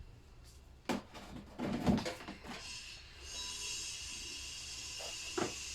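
A few knocks and a short clatter of parts being handled, then a steady hiss begins about three seconds in and keeps going.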